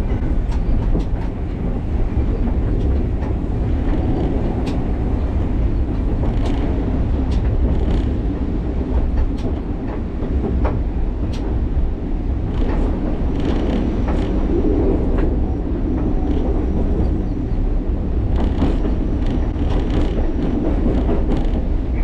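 Alishan Forest Railway narrow-gauge train running steadily: a continuous low rumble of the wheels on the track, with scattered clicks and knocks from the rails.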